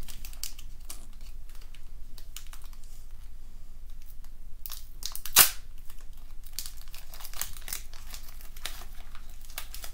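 Foil wrapper of a Pokémon card booster pack crinkling and tearing as it is opened by hand, with scattered small crackles and one sharp, louder snap about five seconds in.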